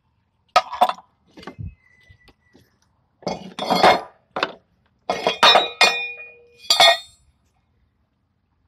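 Wooden cribbing blocks and the steel parts of a hydraulic bottle jack being handled and shifted: clusters of sharp knocks and clanks, some with a short metallic ring in the middle of the clip.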